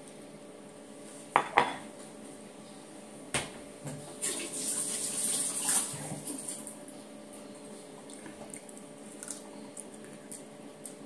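Dishes clinking twice in quick succession, a knock, then a kitchen tap running for a couple of seconds as something is rinsed at the sink, followed by a few light clicks.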